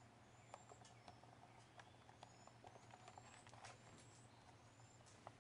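Faint, high, thin bird chirps: short slightly rising notes, about six of them, spaced a half second to a second apart. Scattered soft clicks and taps come with them, the sharpest about half a second in and near the end.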